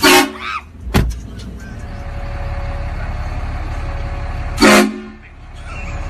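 Two short, loud blasts of a truck-mounted train horn, one right at the start and one just before five seconds in, with a sharp knock about a second in and steady engine and street noise between them.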